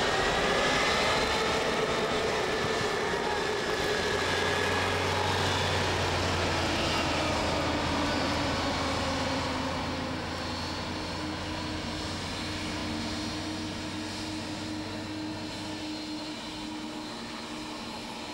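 Boeing 777's twin Pratt & Whitney PW4084 turbofan engines running at low power just after start: a steady rush with a faint whine, slowly getting quieter in the second half.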